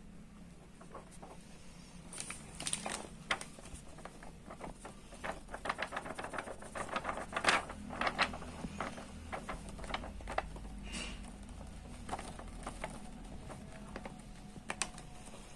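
Thin plastic DTF transfer film crackling and rustling as it is flexed and tilted by hand, with adhesive powder sliding over it. The crackles come thick in the middle and thin out toward the end.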